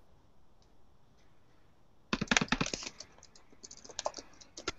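Typing on a computer keyboard: a quick run of keystrokes about two seconds in, then slower, scattered keystrokes.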